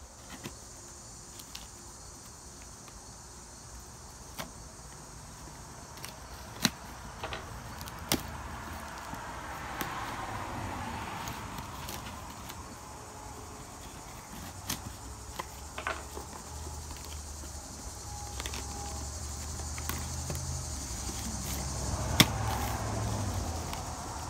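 Cardboard shipping box being handled and its packing tape picked at and torn off, with scattered sharp clicks and rustles, the loudest snap near the end. Steady insect chirring carries on behind it, and a low vehicle rumble swells up about ten seconds in and again later.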